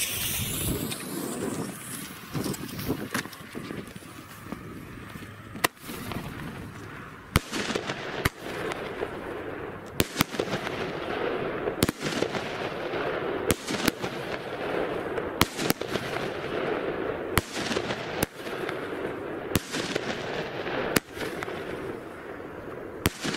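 Weco Poison 16-shot 19 mm firework battery firing: sharp shots go off one after another, about one every one to two seconds, over a steady hiss.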